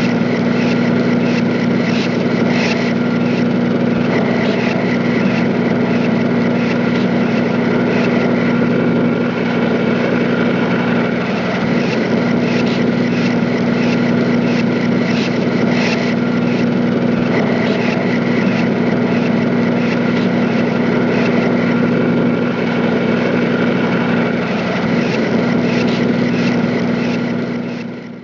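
Steady, loud machinery drone with a low hum and a few higher steady tones, unchanging throughout, which cuts off at the very end.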